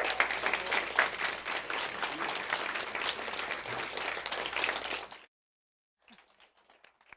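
Audience applauding, a dense patter of many hands clapping that cuts off suddenly about five seconds in, leaving only a few faint scattered clicks.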